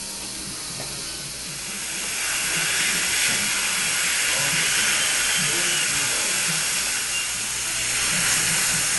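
Dental ultrasonic scaler running with its water spray: a steady hiss that gets louder about two seconds in.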